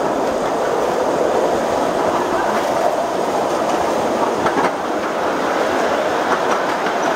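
A 7.5-inch gauge ride-on miniature train running along its track, heard from a passenger car: a steady rumble of wheels on rails with a few light clicks.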